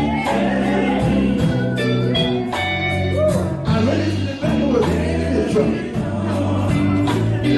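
Gospel song: a singer's voice over bass and guitar accompaniment.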